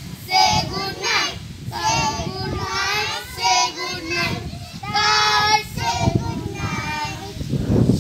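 Young children singing an action rhyme together, in short sung phrases with brief pauses between them.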